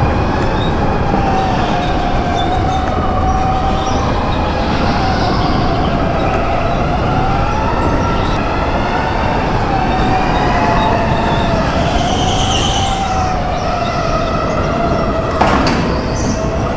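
Electric go-kart motor whining, its pitch rising and falling with speed, over the rumble of the kart running on the track. A sharp knock comes about fifteen seconds in.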